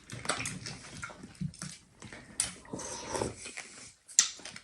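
Close-up eating sounds: chewing and slurping a bowl of fruit in coconut water, broken up by a few sharp clicks.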